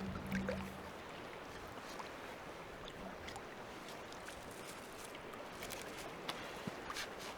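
Lake water lapping with a steady wash of water and wind noise, and a few light knocks and clicks near the end.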